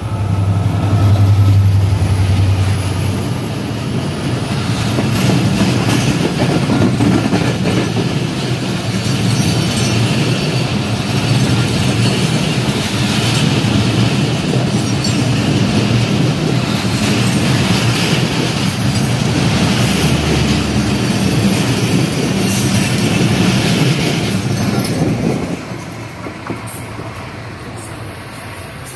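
Oncoming diesel-electric locomotive 6608 passing close by with a steady low engine drone, then its passenger coaches rolling past alongside in a continuous loud rumble of wheels on rail. The rumble falls away about 25 seconds in as the last coach goes by.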